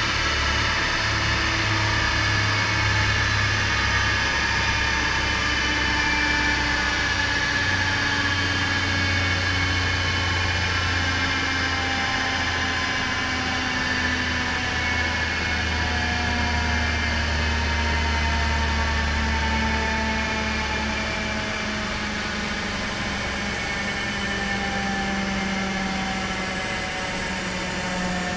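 Car running on a rolling-road dynamometer as the wheels and rollers slowly wind down: several whines fall steadily in pitch throughout, over a low engine hum that drops away about 20 seconds in.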